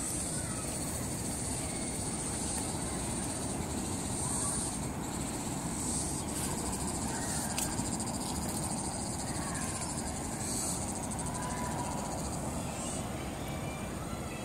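Outdoor ambience: insects trilling in a steady high band that swells and fades several times, over a low, even background rumble.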